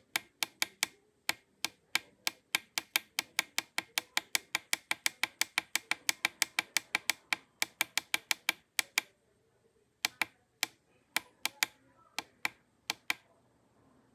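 Rapid, sharp clicking of the Mellif cordless soldering station's temperature button being pressed over and over to raise the heat setting, about five clicks a second for some nine seconds, then a few slower presses near the end.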